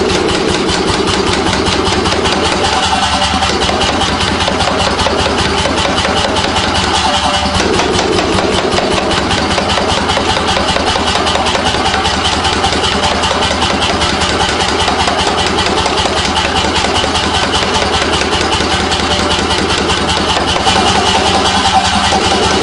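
Power hammer pounding a red-hot steel bar between its dies in a rapid, even run of blows, over the steady hum of the machine.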